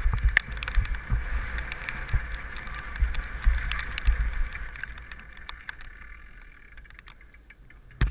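Mountain bike descending a gravel trail, heard from a helmet camera: wind rumbling on the microphone, tyres running over dirt and gravel, and sharp rattles and knocks as the bike hits bumps. It all gets quieter over the last few seconds.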